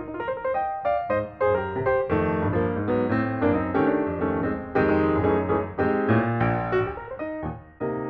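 Background piano music, a quick, continuous run of notes.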